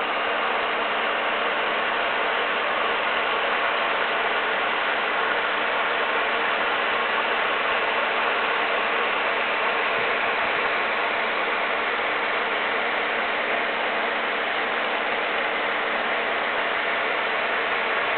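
Aquarium aeration running steadily: a constant hiss of air-stone bubbling with a low hum underneath.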